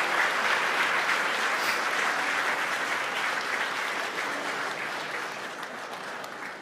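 Crowd of SpaceX employees applauding and cheering for the Falcon 9 booster's re-entry burn, fading away over the last few seconds.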